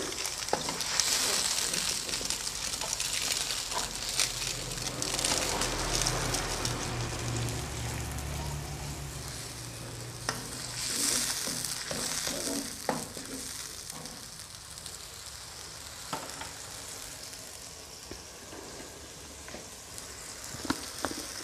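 Blended chili paste sizzling as it sautés in hot oil in a wok, with a slotted spatula stirring and now and then scraping and clicking against the pan. The sizzling grows quieter in the second half.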